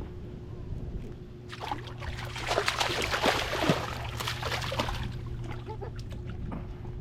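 Water splashing and sloshing beside a kayak for a few seconds, loudest in the middle, over a steady low hum.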